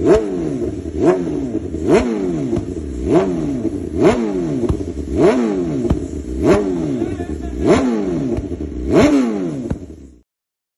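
BMW S1000RR inline-four engine through an SC Project CR-T exhaust, revved in short, sharp throttle blips about once a second. Each rev jumps up and falls back toward idle, nine in all, and the sound stops abruptly near the end.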